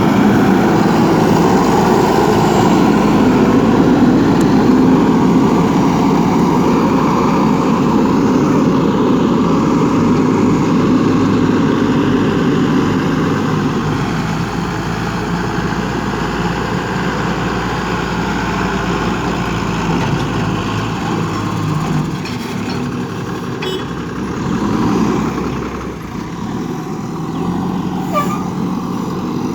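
JCB 3DX backhoe loader's diesel engine running steadily while the machine works, louder for the first dozen seconds and then settling somewhat lower.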